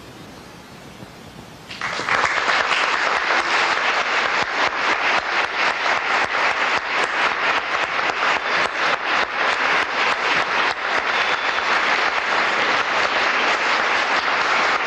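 Audience applause for a school orchestra, breaking out suddenly about two seconds in after a moment of quiet hall hiss and then going on steadily and densely.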